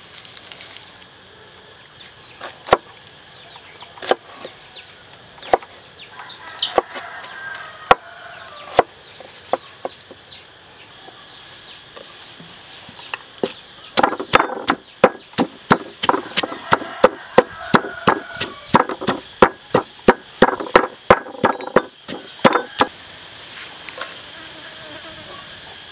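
Wooden pestle pounding shallots and lemongrass in a wooden mortar. Single hard knocks come spaced apart at first, then a fast run of knocks for about ten seconds that stops a few seconds before the end.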